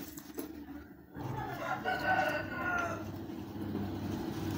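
One long animal call, beginning about a second in and lasting about two seconds, over a low steady hum that comes in at the same time.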